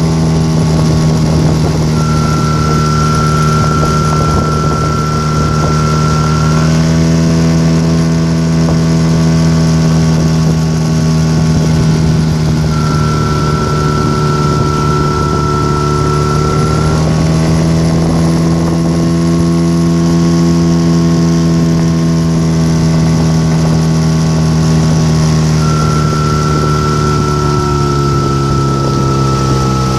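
Tohatsu M5BS two-stroke outboard motor running, with a steady high whistle that comes in three times for about four seconds each. The whistle appears as the revs dip slightly and drops out when they pick up again; its cause is unknown.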